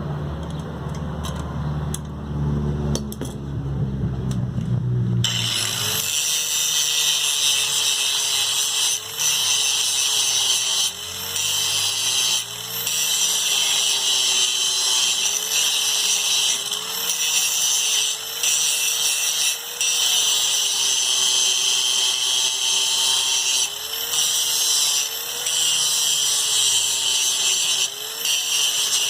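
An electric power tool running hard, its motor whine sagging and recovering in pitch every second or two, with a few short breaks. It starts about five seconds in, after a low rumble.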